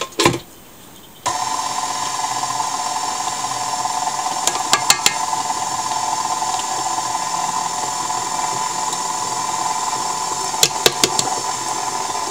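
KitchenAid stand mixer switching on about a second in and running steadily, its dough hook working flour into a butter dough until it gathers. A few sharp clicks come twice along the way.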